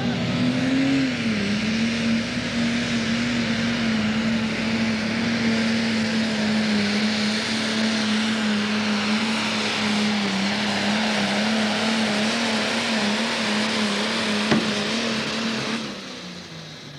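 Pro Stock pulling tractor's turbocharged diesel engine running flat out under load while dragging the weight-transfer sled, a loud steady drone that swells in pitch about a second in and then holds. A single sharp crack comes near the end, and the engine sound drops off suddenly about a second before the end as the pull finishes.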